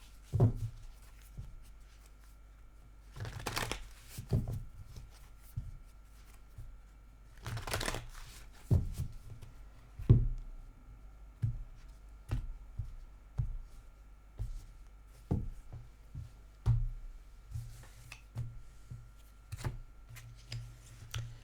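Small divination pieces handled on a tabletop: scattered taps and knocks, with two short shuffling rustles about 3.5 and 8 seconds in.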